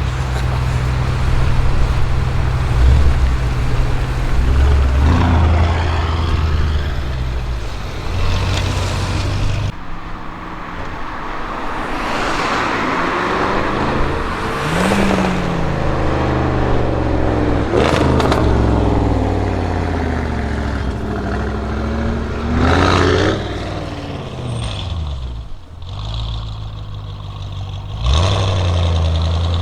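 Audi RS6 Avant C7 twin-turbo V8 breathing through a Milltek exhaust: a steady low engine note, then revving and accelerating, with the pitch rising and falling several times. One sharp crack comes about midway, over street traffic noise.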